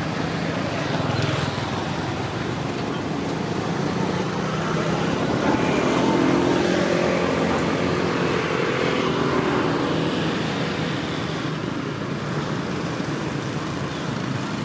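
Steady background of road traffic, loudest about six seconds in as a motor vehicle passes, with two brief high chirps later on.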